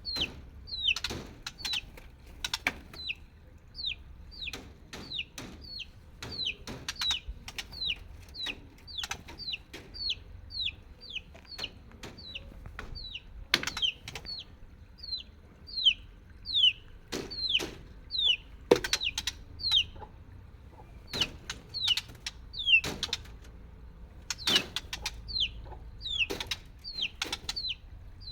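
Chicks peeping: a steady run of short, high, falling peeps, about two a second, with scattered sharp clicks and knocks among them.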